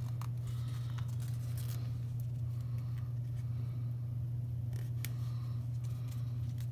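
A paper sticker sheet being handled and a planner sticker peeled off and pressed onto a paper page: light rustles and small clicks, over a steady low hum.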